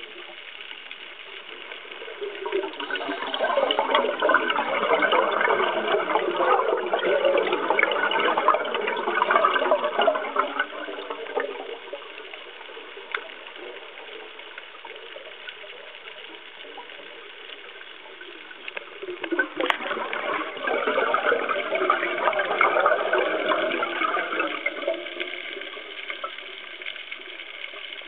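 Scuba diver's exhaled bubbles gurgling and crackling past the underwater camera housing: two long exhalations, one starting a couple of seconds in and one about twenty seconds in, with a steady faint hiss between them.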